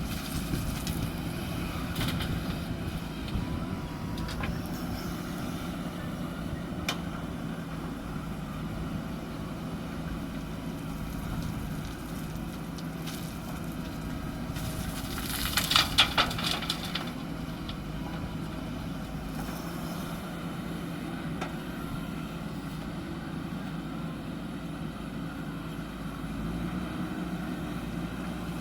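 JCB backhoe loader's diesel engine running steadily, with a few light clicks and a brief burst of rattling clatter just past halfway.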